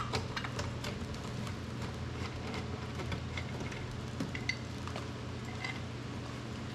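Scattered light clicks and taps of hands working loose the hardware of a car door's trim, with a sharper click at the very start, over a steady low hum.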